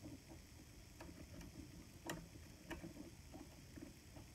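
Faint, irregular clicks of a diamond pick lifting and setting pin tumblers one at a time in a Sparrows Crystal Clear practice lock cylinder, with the sharpest click about two seconds in.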